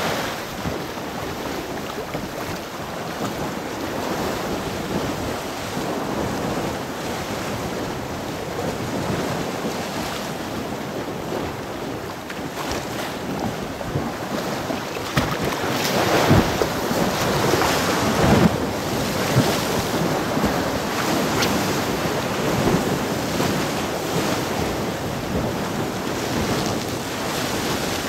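Sea waves washing onto the shore, with wind buffeting the microphone. The surf swells louder about halfway through.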